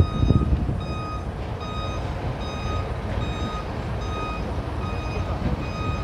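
A vehicle warning beeper sounding a steady, evenly spaced beep a little more than once a second, over the continuous low rumble of a heavy truck and multi-axle trailer rolling slowly past.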